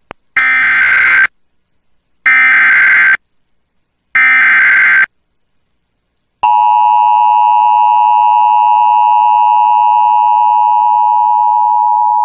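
Emergency Alert System header on FM radio: three short bursts of SAME digital data tones about two seconds apart, then the steady two-tone EAS attention signal starts about a second and a half after the last burst and keeps sounding. Together they mark the start of a new alert, here a severe thunderstorm warning.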